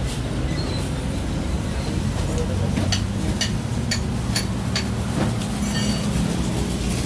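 An engine runs with a steady low hum, while several sharp metallic clinks of tools on metal sound about three to five seconds in.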